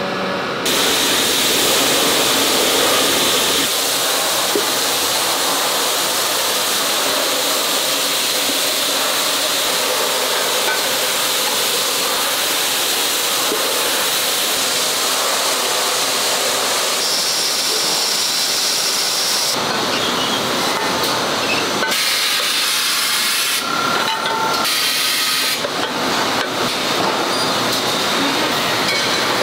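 Loud, steady hiss of compressed air blasting inside a pan-treatment booth working on aluminium frying pans. In the last third the hiss breaks off and comes back several times.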